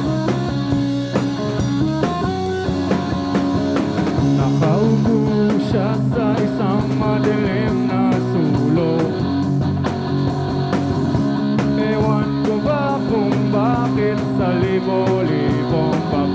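Rock band playing live: distorted electric guitar chords over a drum kit keeping a steady beat. A male lead voice comes in singing about four seconds in.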